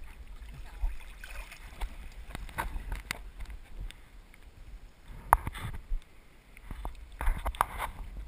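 Shallow seawater splashing and lapping against a camera held at the water's surface: irregular small splashes over a low rumble, with a sharper splash about five seconds in.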